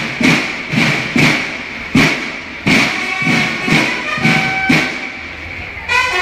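Mexican banda de guerra (military drum and bugle corps) playing: drums strike a steady beat about twice a second, and bugles join in with held notes about halfway through.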